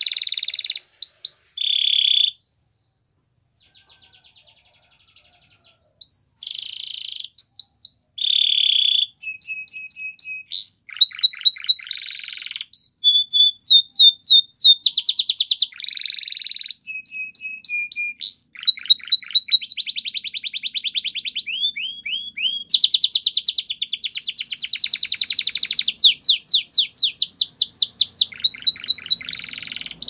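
Canary singing: a long song of phrases of fast repeated notes and rolling trills, many of the notes sliding down in pitch, broken by a pause of about three seconds near the start.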